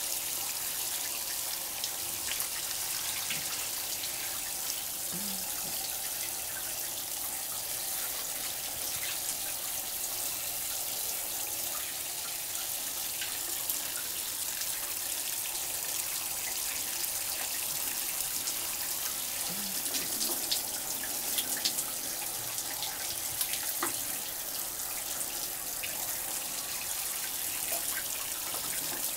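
Shower water running steadily and splashing in a tiled stall, with scattered small drips and splashes.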